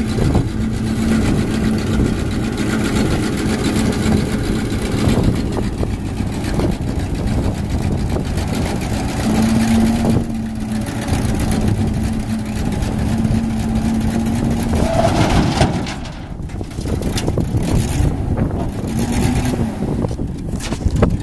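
1983 GMC Topkick dump truck's engine running while its hydraulic hoist raises the dump bed, with a steady whine over the engine. About 16 seconds in, the whine stops and the sound gets quieter.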